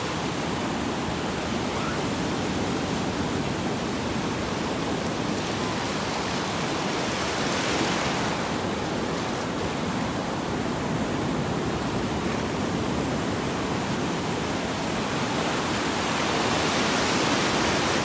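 Ocean surf: waves breaking and washing ashore in a steady rush, swelling a little about eight seconds in and again near the end.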